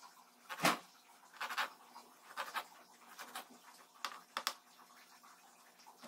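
Kitchen knife chopping tomato on a plastic cutting board: a string of short, irregular knocks as the blade meets the board, the loudest less than a second in.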